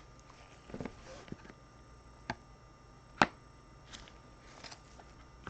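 Trading cards being handled on a table: a few light taps and clicks, the sharpest about three seconds in, with faint rustling between.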